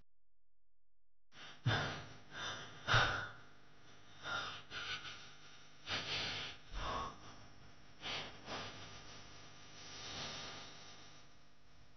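A person breathing in uneven, heavy gasps and sighs, about a dozen breaths starting a little over a second in, with the strongest two near the start. The breathing sounds distressed, as in someone on the edge of tears.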